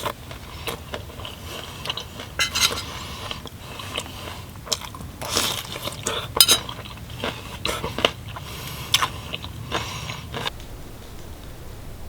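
A person eating close to the microphone: irregular crunchy bites and chewing, with scattered light clinks of cutlery against dishes.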